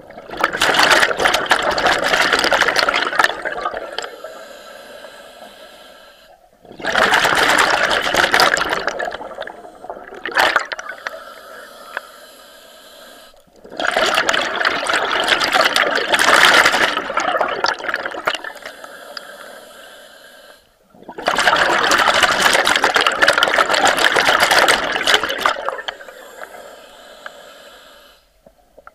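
Scuba regulator exhaust: a diver's exhaled air bursting out as a rush of bubbles, four long exhalations about seven seconds apart, with quieter inhalations between them, heard underwater.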